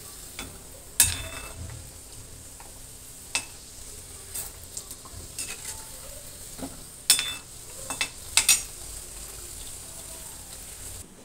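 A kachori deep-frying in refined oil in a steel kadhai, sizzling steadily, while a perforated metal slotted spoon stirs it and clinks sharply against the pan several times. The sizzle cuts off suddenly near the end.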